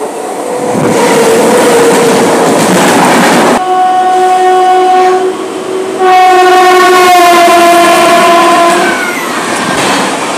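Indian Railways electric locomotive passing close on the next track, sounding its horn twice over the rumble and clatter of the train: a short blast, then a longer one that drops in pitch as it goes by.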